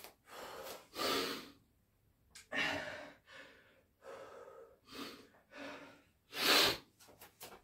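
A man breathing hard and fast, panting from exertion during a long set of burpees, about one loud breath a second, with the strongest one near the end.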